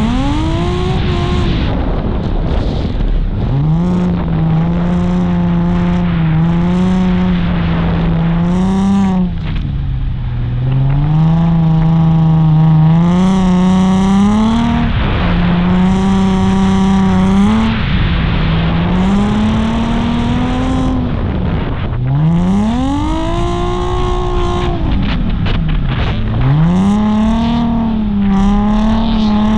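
Nissan 350Z's V6 engine under hard throttle on a drift run: its revs hold high and level for stretches, then drop sharply and climb back several times as the car is driven through the corners.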